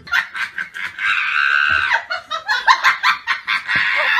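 A person laughing hard in quick repeated bursts, with a longer high held stretch about a second in.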